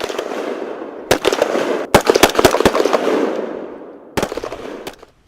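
A rapid string of loud bangs over a rushing, decaying rumble, like gunfire and explosions, in several bursts that start and cut off abruptly.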